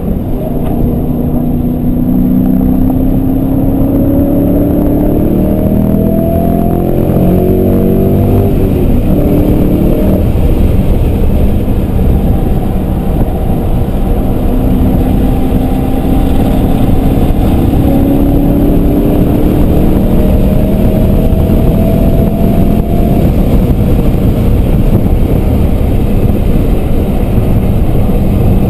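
Muffler-deleted BMW E39 M5's 4.9-litre V8 under hard acceleration, heard from inside the cabin. The engine note climbs in pitch for several seconds near the start and again in the middle, over loud, steady engine and road noise.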